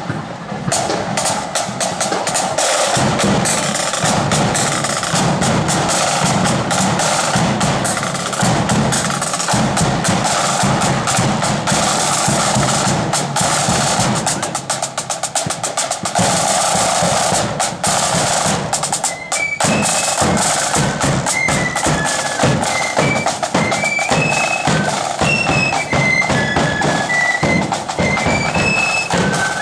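Blood-and-thunder marching flute band: snare drums and a bass drum beat out a loud parade rhythm with rolls, and about two-thirds of the way through the flutes come in with a melody over the drums.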